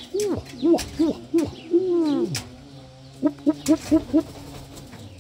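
Domestic pigeons cooing: a string of rising-and-falling coos, one longer drawn-out coo about two seconds in, then a quick run of about six short coos in about a second.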